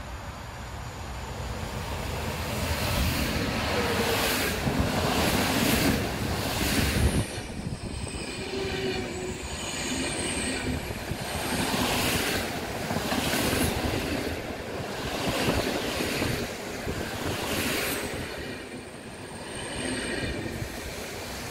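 Electric-hauled passenger train passing close by: the locomotive's noise builds to its loudest about seven seconds in, then the coaches run past with a repeating clatter of wheels over the rails and brief high-pitched wheel squeals.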